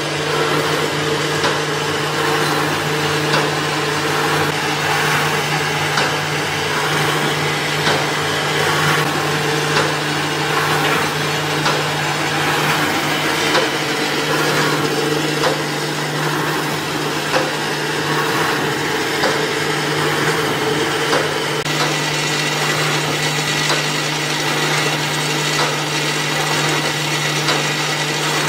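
Automatic wire mesh welding machine running: a steady electrical hum under a dense mechanical clatter, with a regular sharp click about once a second as the machine cycles.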